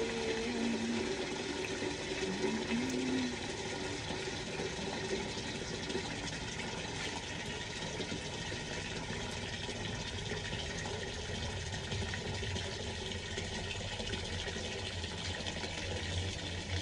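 Water running from the tap of a plastic water storage tank into a plastic bucket, a steady splashing rush of filling water.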